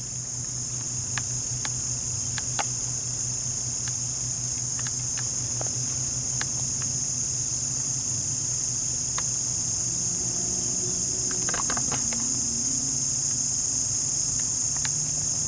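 Steady high-pitched chorus of insects, crickets or similar, running without a break, over a faint low hum, with a few faint scattered clicks.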